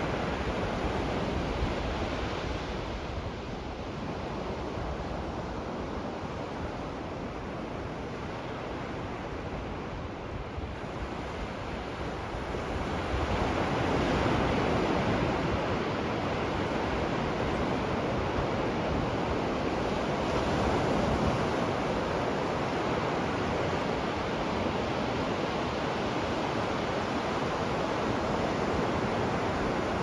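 Ocean surf breaking and washing up a sandy beach, a steady rushing wash that eases for a few seconds, then swells louder about halfway through as a bigger set of waves comes in.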